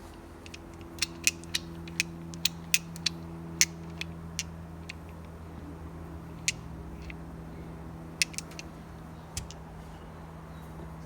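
Sharp clicks and taps from small parts and tools being handled, a quick irregular run of them in the first few seconds and a few scattered ones later, over a steady low hum.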